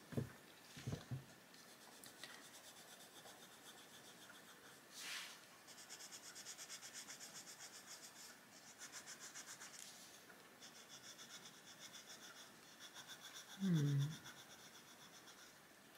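Faber-Castell Polychromos coloured pencil scratching faintly on paper in quick back-and-forth shading strokes, several a second, in two runs with a short pause between.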